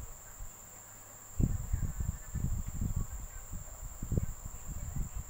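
Soft irregular bumps and rustles of hands working yarn and a metal crochet hook close to the microphone, starting about a second and a half in, over a steady high-pitched whine.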